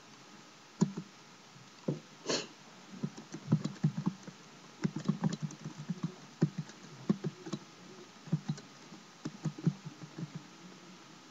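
Typing on a computer keyboard: irregular key presses in quick runs, starting about a second in.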